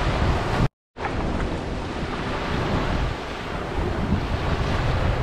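Gentle surf washing onto a sandy beach, with wind rumbling on the microphone. The sound cuts out completely for a fraction of a second just under a second in, then resumes.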